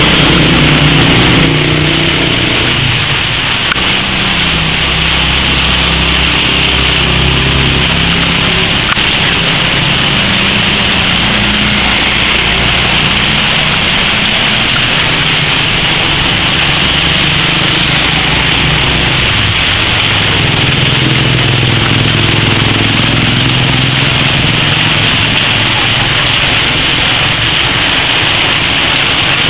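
Small motor-vehicle engines running and passing, their pitch wandering up and down, over a steady loud hiss.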